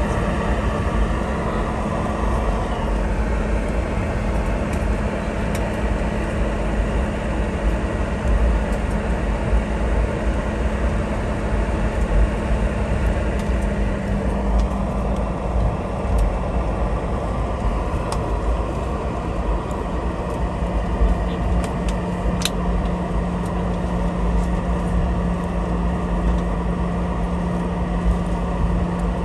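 Cabin noise inside a Boeing 717 taxiing after landing: the rear-mounted Rolls-Royce BR715 turbofans hum steadily at idle over a low rumble of the aircraft rolling on the ground. The engine hum drops slightly in pitch about halfway through.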